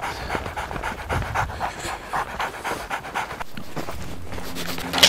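A pig-hunting dog panting hard and fast as it runs, about three to four breaths a second, heard close up from a camera strapped to the dog. A low steady drone comes in near the end.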